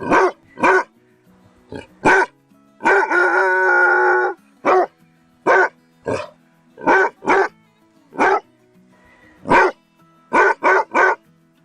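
Basset hound barking repeatedly in short, loud barks at an uneven pace, with one drawn-out bay lasting about a second and a half around three seconds in, and a quick run of four barks near the end.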